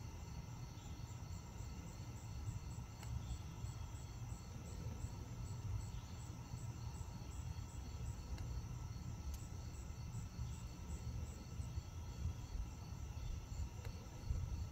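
Evening chorus of crickets and other insects chirping and trilling steadily, over a low, even rumble.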